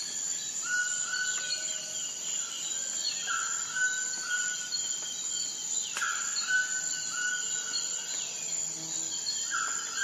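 Woodland ambience: insects droning steadily, with a bird calling repeatedly, each call a quick falling note that settles into a short held whistle, about every three seconds.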